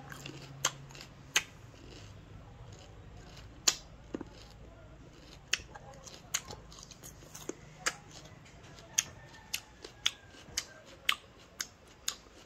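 Close-up mouth sounds of someone eating green fruit: irregular sharp crunches and lip smacks, roughly one a second.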